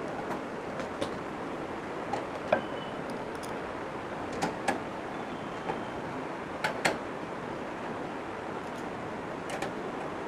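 Scattered light clicks and knocks of hardware being handled as a power supply unit is fitted into a computer cabinet, over a steady background hiss.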